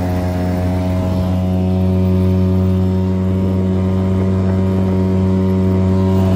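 Apache 5 five-horsepower outboard motor running steadily at a constant pitch, pushing the boat along at speed, about 28 km/h.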